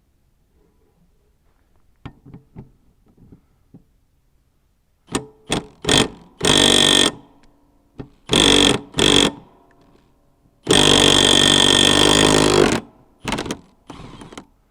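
Impact wrench hammering in several short bursts, then one longer burst of about two seconds, breaking loose a tight mower blade bolt. A few faint knocks of the socket being fitted come before it.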